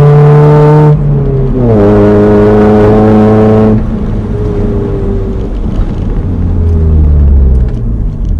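Honda H23 2.3-litre inline-four in a Prelude, revving high under hard acceleration. A break and drop in revs about a second in, a second loud pull, then the throttle lifts about four seconds in and the engine runs quieter at lower revs.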